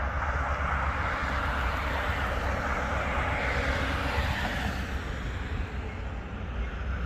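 A car passing on the road, its tyre and road noise swelling to a peak about three to four seconds in and fading away by five seconds, over a steady low rumble.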